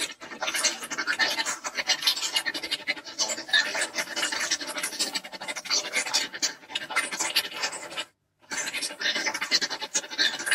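Alien-language sound effect made of a dense, rapid chatter of scratchy clicks and crackles, not a voice. It breaks off briefly about eight seconds in, then resumes.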